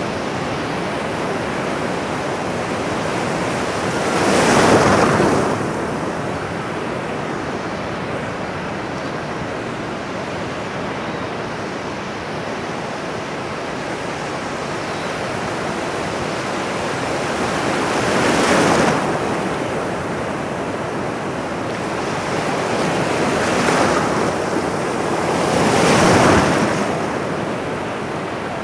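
Ocean surf: a steady wash of breaking waves, with a louder wave cresting and breaking about five seconds in, another near the middle, and two more near the end.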